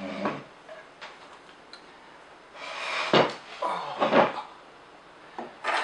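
Off-camera handling noise: hard objects being knocked, moved and set down on a worktable. The loudest sounds come about three and four seconds in.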